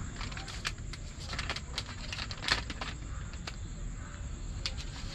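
Steady high-pitched chirring of insects, with scattered clicks and crinkles of a plastic wet-wipes packet being handled.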